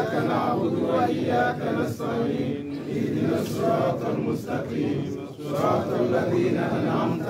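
A group of men's voices chanting together in unison.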